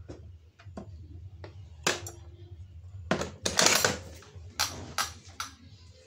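Electric rim door lock and steel door handle clicking and clattering as the small door is unlatched and worked. A loud metallic clack rings briefly about two seconds in, a longer metal rattle follows about a second later, and a few sharper knocks come near the end.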